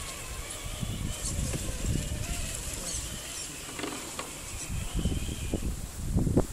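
Electric motors and gearboxes of radio-controlled scale crawler trucks whining as they crawl up a dirt slope, the whine rising and falling in pitch with the throttle, with a few clicks from the drivetrain or stones. An uneven low rumble grows louder near the end.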